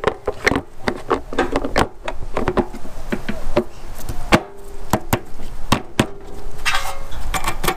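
Air cleaner cover of a Honda GX390 engine being handled and seated by hand: a rapid, irregular series of knocks and clicks as it bumps against the engine housing.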